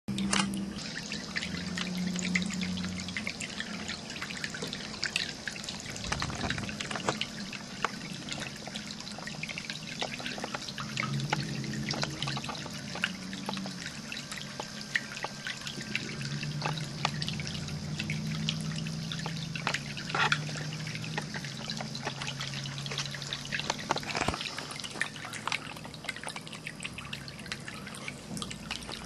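Ceramic cat drinking fountain running: water trickling and splashing steadily, with many small irregular drips and a low, wavering hum underneath.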